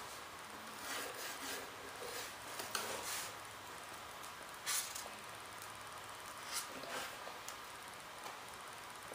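Pencil scratching short lines on a wooden sheet, a few separate strokes, the sharpest a little under five seconds in.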